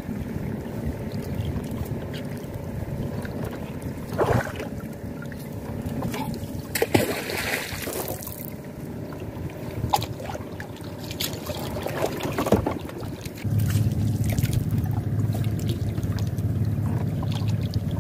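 Water trickling and lapping around a small wooden canoe as a wet gill net is hauled in over the side by hand, with occasional small splashes and knocks. A steady low hum starts about two-thirds of the way through.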